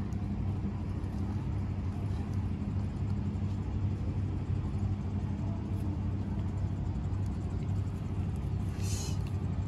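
Steady low motor drone with an even hum throughout, and a brief hiss about nine seconds in.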